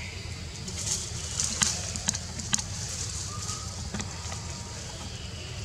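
Outdoor ambience: a steady low rumble under a high hiss, with three short sharp clicks about half a second apart near the middle.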